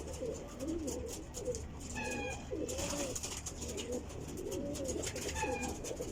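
Domestic pigeons cooing over and over, with short high chirps twice, about two seconds in and again about five seconds in.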